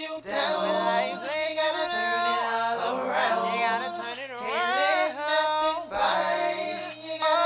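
Sung vocals in a hip hop/R&B song, the voice sliding through long drawn-out notes with little or no beat underneath.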